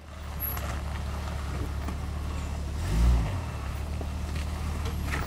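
Lifted Jeep Cherokee's engine running at a low, steady crawl over rocks, with a brief rev that rises and falls about three seconds in.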